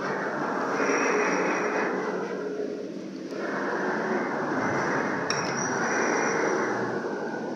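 Road traffic noise swelling and fading twice, as two vehicles pass one after another, with a light click about five seconds in.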